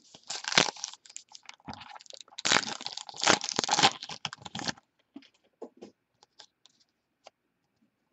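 Trading-card pack wrapper crinkling and tearing for the first few seconds, then a few light clicks and taps as the cards are handled.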